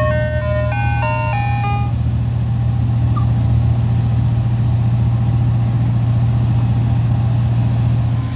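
Ice cream truck's electronic chime playing a stepped tune, which stops about two seconds in, over a steady low hum that runs on after the tune ends.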